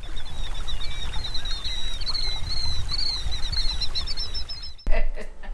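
Outdoor creekside ambience: birds chirping steadily in quick, high notes over a low rumble of wind or running water. The sound cuts off suddenly near the end.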